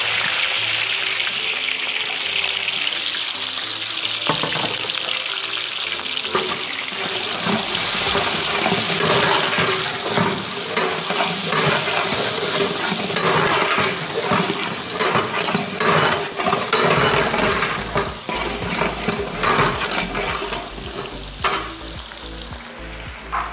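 Sliced onions, capsicum and green chillies sizzling steadily in hot sunflower oil in a large metal pot. A long metal ladle stirs them, scraping and knocking against the pot, more often from about a third of the way in.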